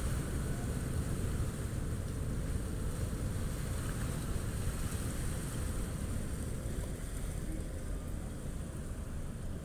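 Steady low rumble of a ro-ro ferry's engines and propeller churn as it manoeuvres in to berth at the ramp, with wind buffeting the microphone.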